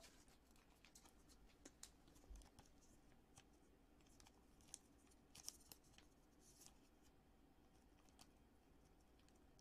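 Near silence with faint scattered ticks and a few brief soft rustles about halfway through: a chrome trading card being slid into a thin plastic penny sleeve.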